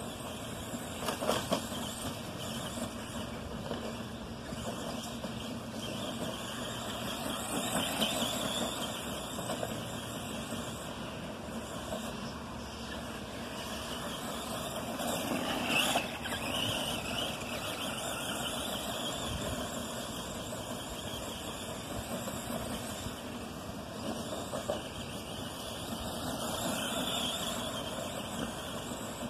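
Arrma Granite Voltage RC monster truck's brushed electric motor whining as it drives over grass, swelling louder several times with bursts of throttle.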